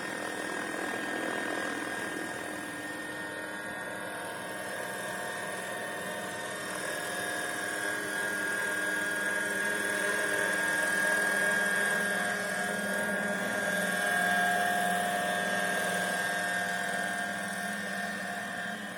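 Vario radio-controlled model helicopter running, a steady engine and rotor whine with several tones. It grows louder through the middle, a higher tone comes in about two-thirds of the way through, and it eases off slightly near the end.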